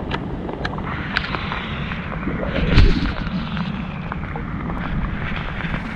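Steady rain with a low, rumbling noise on the microphone. Scattered ticks run through it, and there is a heavier thump about three seconds in.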